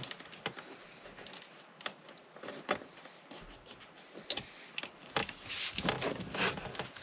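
Plastic screw covers being pressed back into an Audi RS4 steering wheel: scattered small clicks and taps, with a denser stretch of handling and rustling noise near the end.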